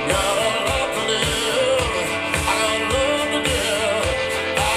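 Rock song with a singer and a steady drum beat, played back over Aeria Compact floorstanding loudspeakers driven by a Luxman FQ 990 amplifier.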